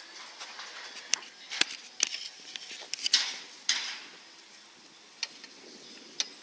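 Metal snake-handling tool clicking and knocking against clay bricks in irregular sharp taps, with a couple of longer scrapes about three seconds in, as a carpet python is worked out of a hole in a brick pallet.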